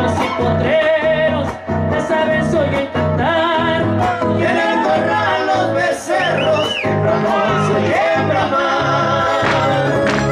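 Live huapango huasteco from a string trio: a violin melody with wide vibrato over a steady strummed rhythm of jarana and quinta huapanguera.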